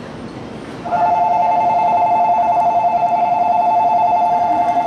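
Tokaido Shinkansen platform departure bell: an electronic ring of two close tones trilling rapidly, starting about a second in and ringing steadily on, the signal that the train is about to leave.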